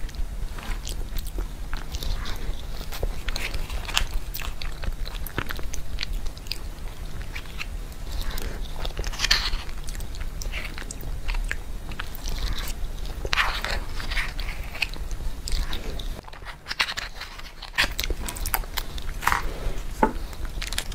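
Close-miked eating sounds: a metal spoon scraping and clicking in a plastic cup, and the mouth sounds of eating a soft, chilled purple-rice and coconut cream dessert. There is a short lull about three-quarters of the way through.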